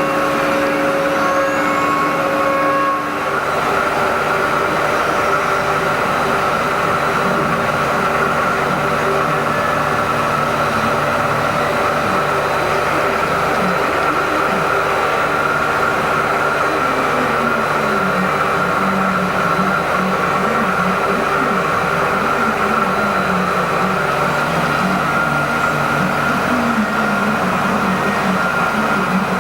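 Haas EC-400PP CNC horizontal mill running: a steady machine hum with a high whine. The set of steady tones changes about three seconds in, and a lower tone wavers through the rest.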